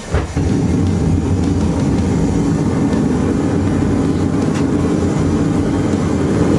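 Forge being fired for heating the spike: a steady, loud, low rumble that starts just after a click and holds without break.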